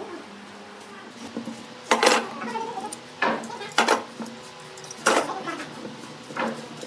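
Steel F-style bar clamps clanking as they are handled and set down: about five sharp metal knocks, a second or so apart, the loudest about two seconds in.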